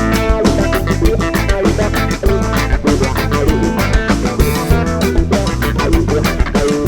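Live rock band playing an instrumental passage: electric guitars, bass guitar and drum kit with a steady beat.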